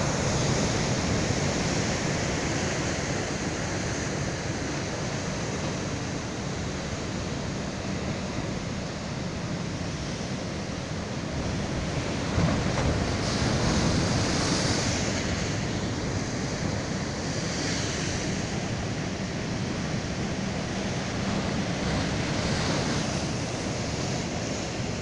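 Surf breaking and rushing at a river-mouth bar in rough sea, with wind on the microphone. The wash swells several times and there is a brief bump a little past halfway.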